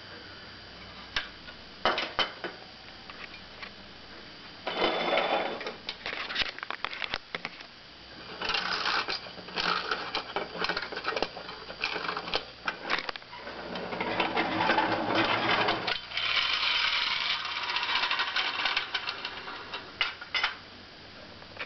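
Clockwork motor of a tinplate Tipp & Co wind-up motorcycle-and-sidecar toy whirring and rattling in several spells of a few seconds each. Separate sharp clicks and knocks fall between the runs.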